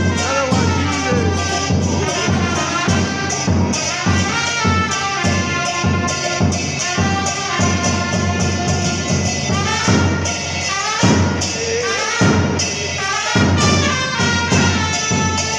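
Two trumpets playing a cumbia melody over a steady beat on a bombo murguero (murga bass drum).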